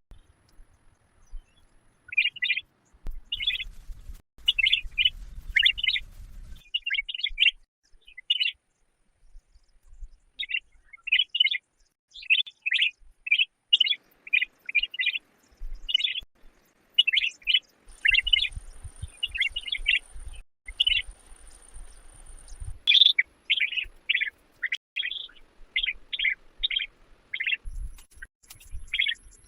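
A bird chirping: short, sharp chirps repeated in quick runs, with a pause of about two seconds about a third of the way through.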